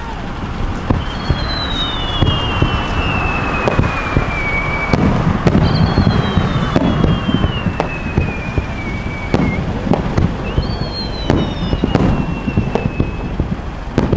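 Fireworks display: aerial shells bursting in a steady run of bangs and cracks with a low rumble between them. A high whistle slides slowly down in pitch three times.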